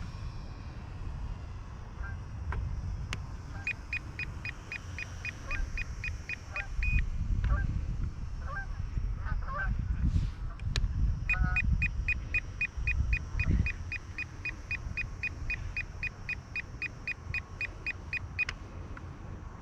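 Wind rumbling and buffeting the microphone, with two runs of rapid, evenly spaced high beeping, about four beeps a second, one a few seconds in and a longer one from about the middle until near the end.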